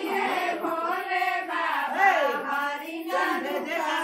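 A group of women singing a wedding folk song together, several voices at once with long, gliding notes.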